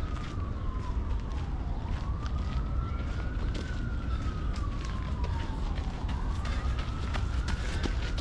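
A distant emergency-vehicle siren in a slow wail, rising and falling about once every four seconds, over a steady low rumble and frequent light clicks.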